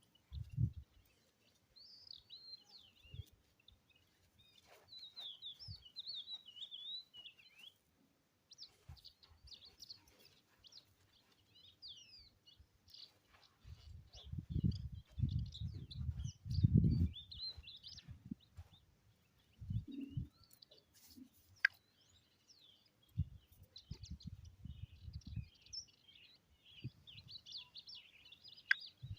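Small birds chirping and twittering in quick, busy bursts throughout. Low rumbling thumps come in clusters, the loudest a little past the middle and another cluster later on.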